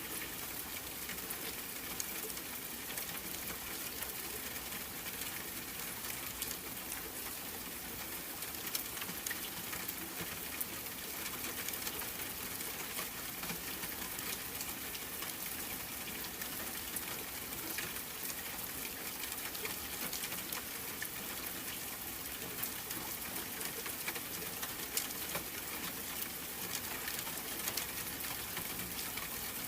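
Steady rain falling, an even hiss dotted with many fine drop ticks.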